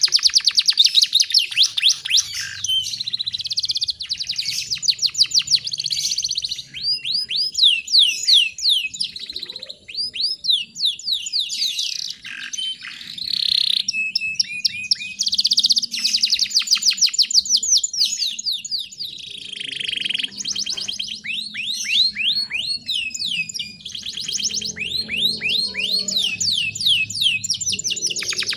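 Domestic canary singing long, rapid rolling trills of fast repeated sweeping notes, run after run with short breaks between them.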